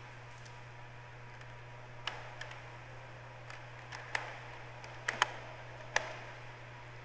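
About half a dozen sharp, irregularly spaced clicks of a laptop being operated, heard through the pulpit microphone over a steady low electrical hum.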